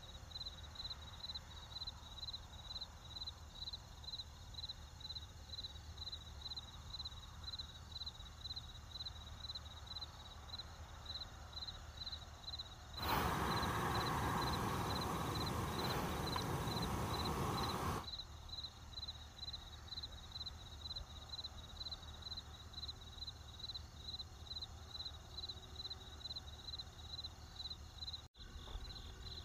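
Crickets chirping in a steady high pulse about twice a second over faint night-time background noise. From about 13 to 18 seconds this gives way to the louder, steady rushing hiss of a small electric stand fan running inside a tent.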